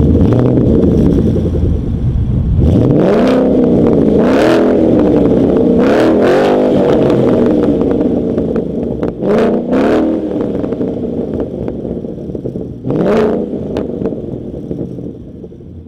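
2013 Ford Mustang GT's 5.0 Coyote V8 through a Borla axle-back exhaust, idling with a steady burble and blipped about five times, each rev rising sharply and falling back to idle. The sound grows quieter near the end.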